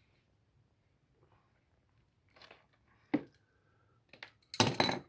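Scattered clicks and rustling of small parts and hand tools being handled while wiring a circuit breaker, with a louder short crunch or clatter near the end.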